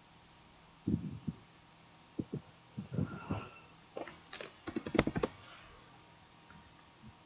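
Computer keyboard and mouse clicks in scattered runs, thickest about four to five seconds in, with a few faint low thuds before them.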